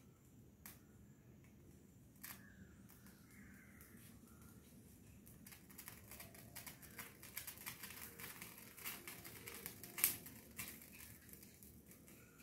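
Faint crackling and ticking from the small flames of a brass oil lamp's wicks as they are lit and catch. It grows denser about halfway through, with one louder snap near the end.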